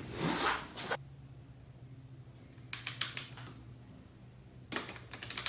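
Short bursts of light metallic clicking and rattling from hand tools as the inner bar clamp bolts are tightened to 15 Nm: three quick clusters, at the start, in the middle and near the end.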